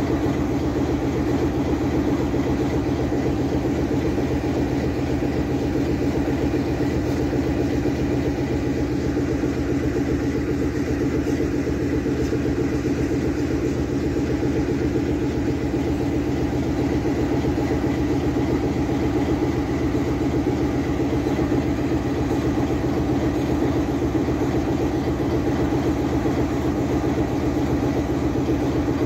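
GE U20C diesel-electric locomotive's V8 diesel engine idling steadily with the train standing still.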